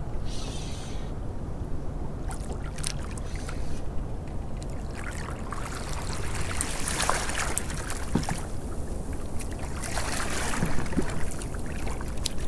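A hooked bull huss splashing at the surface beside a small boat as it is reeled in and lifted, in two spells of splashing, with scattered sharp clicks from the reel and line handling over a steady low rumble of wind and water against the hull.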